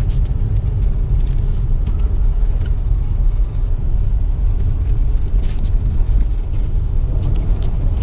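Car driving on a snow-covered highway: a steady low rumble of engine and tyre noise, with a few faint ticks.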